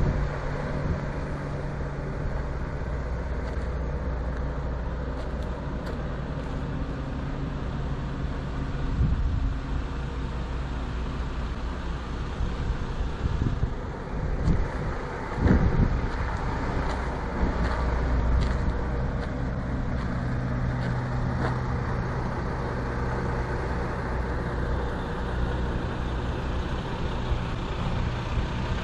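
Diesel engine of a 1994 Freightliner cabover semi truck idling steadily, with a couple of brief thumps about halfway through.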